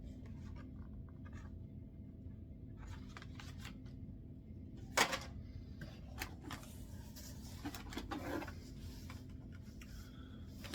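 Fishing lure packages being handled and rustled, with scattered short crinkles and clicks and one sharper click about five seconds in, over a faint steady hum.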